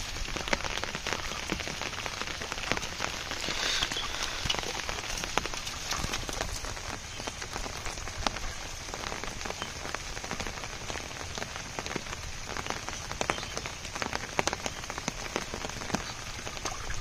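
Steady rain falling: an even hiss made up of many small drop ticks.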